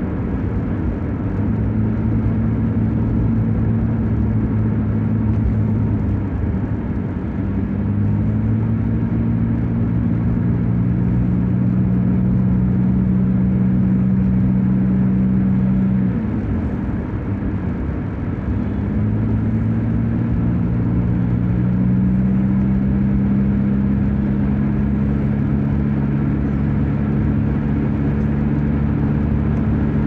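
Car engine and road noise heard from inside the cabin while cruising on a highway: a steady low drone that dips in pitch about a quarter of the way in, fades briefly near the middle, then comes back and holds steady.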